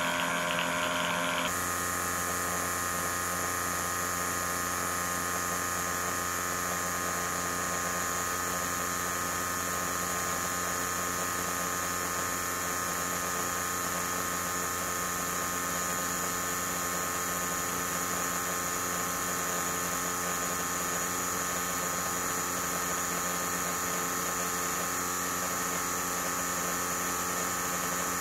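A 3D-printed diaphragm air pump driven by a small electric motor, running steadily at a constant pitch as it pumps air into bags under a 10-pound weight. The sound changes about a second and a half in, then holds even.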